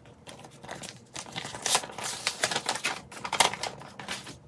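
A paper receipt and its envelope being handled, rustling and crinkling in irregular crackles.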